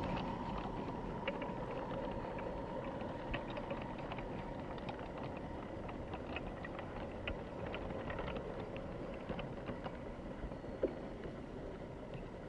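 G-gauge garden railway train rolling past on outdoor track, with a scatter of light clicks from the wheels on the rails and a faint steady whine, slowly fading as the cars move away.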